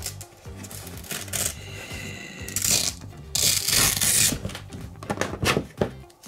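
Hook-and-loop fastening on an O'Neal Tron neck brace's foam pads ripping apart in two loud rasping tears, about two and a half and three and a half seconds in, with smaller scratches near the end, over background music.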